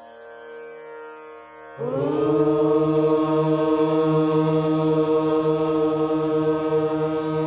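A soft steady drone, then about two seconds in a group of voices comes in together on one long chanted note. The note is held steady and loud, without a break.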